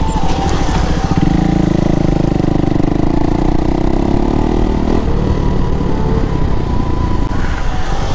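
Sport motorcycle engine running under way, heard from the rider's seat with wind noise. About five seconds in the engine note changes as the bike slows down.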